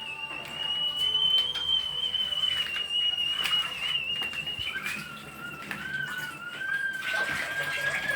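Whistling kettle whistling at the boil: a steady, slightly wavering high tone, joined about five seconds in by a second, lower tone.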